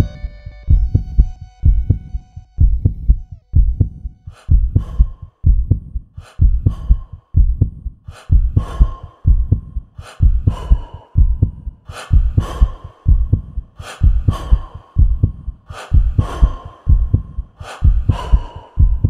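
Electronic background music built on a steady kick-drum beat, about two thumps a second. Sustained synth chords fade out in the first second, and sharper percussion hits join the beat about four seconds in.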